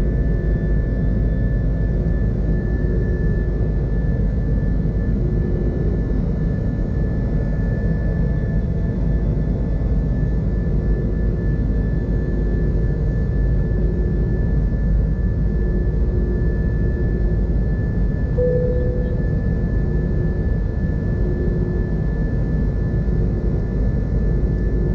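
Airbus A330-200 twin turbofan engines at climb power, heard from inside the cabin beside the wing: a steady low rumble with a steady high whine over it.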